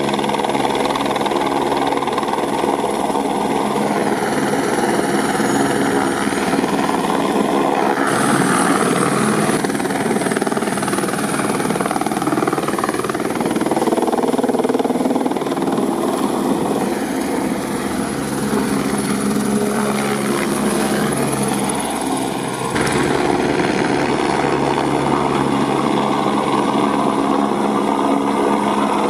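Eurocopter AS350 Écureuil helicopter hovering and flying close by: a loud, steady mix of turbine whine and rotor blade noise. Its pitch wavers as the helicopter moves, and the sound shifts abruptly about 8 seconds in and again about 23 seconds in.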